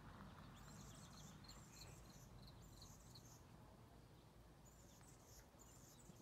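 Near silence: quiet outdoor ambience with faint, high-pitched chirping in short runs.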